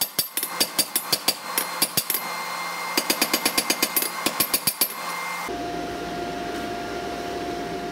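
Power hammer pounding a red-hot steel bar in quick blows, about six a second, knocking down the bolster section of a pair of tongs. After about five seconds the blows stop suddenly, leaving a steady hum with a thin whine.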